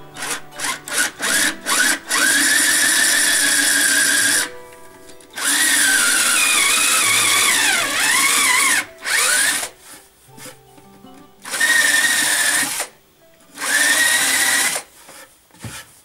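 Cordless drill boring a hole into a wooden board for a gusli's resonator hole. A few quick trigger blips at first, then several longer runs with short pauses between; the motor's whine sags and wavers in pitch midway through as the bit bites into the wood.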